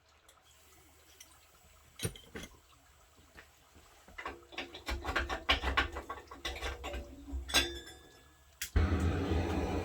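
Clinking and clattering of hard objects, a few separate clicks at first, then a busy run of clatter from about four seconds in. Near the end a steady rumbling hiss starts suddenly.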